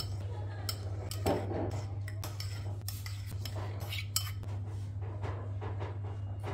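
Metal spoon clinking and scraping against a bowl and cups while spooning out chunky strawberry topping: a run of light, irregular clicks over a steady low hum.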